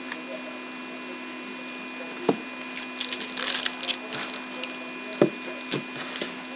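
Foil trading-card pack wrapper crinkling and being torn open from about three seconds in, with a few sharp taps as cards and packs are set down on the tabletop, about two seconds in and twice near the end. A steady hum runs underneath.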